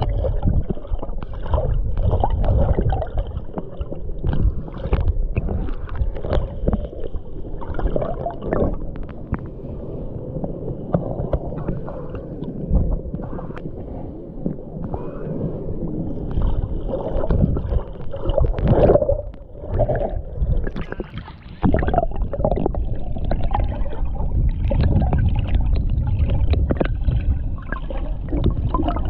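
Muffled underwater water noise from a submerged camera: low gurgling and sloshing with frequent short knocks and rustles as it moves through the river water.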